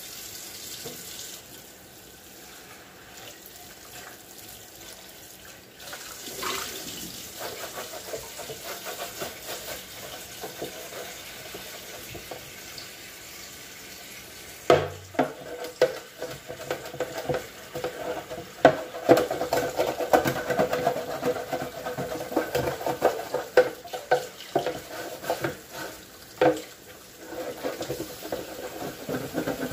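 Tap water running into a kitchen sink while removable fridge parts are washed. From about halfway there are frequent clattering knocks of hard items against the sink, and the water gets louder.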